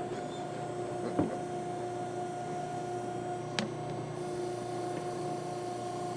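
A backhoe's engine idling with a steady hum and whine. There are two faint clicks, about a second in and again a few seconds later.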